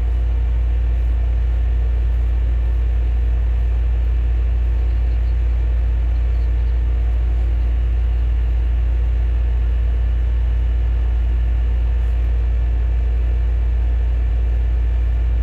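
Steady, loud low hum with faint steady higher tones over it, unchanging throughout and cutting off abruptly.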